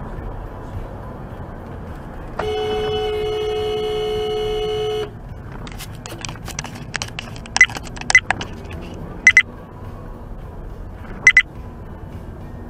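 Car horn held steady for about two and a half seconds over the car's road noise, then a scatter of sharp clicks and several short high beeps.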